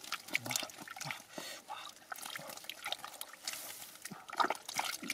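Gloved hands groping through thick wet mud, squelching and sloshing in a string of short, irregular wet sounds, with one louder splash a little after four seconds in.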